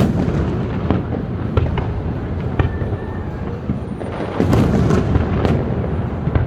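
Aerial fireworks bursting: repeated booms and cracks over a continuous low rumble of echoing reports, loudest from about four seconds in.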